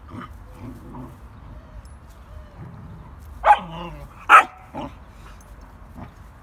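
Dogs at play: two short, sharp barks about a second apart past the middle, loud against a few fainter short yips before and after.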